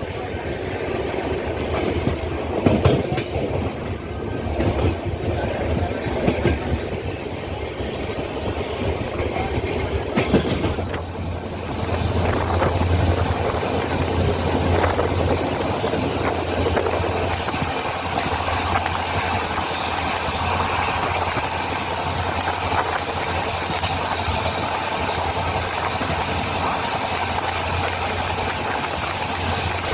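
Passenger train coach running on the rails, heard through an open doorway: wheels clattering over the station yard's points and joints in the first dozen seconds, then a steadier, louder rumble as the train runs on along open track.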